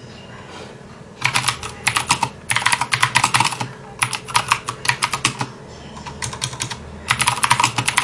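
Typing on an RK61 61-key mechanical keyboard with Cherry MX Blue switches: fast runs of sharp keystroke clicks in several bursts with short pauses between them, starting about a second in.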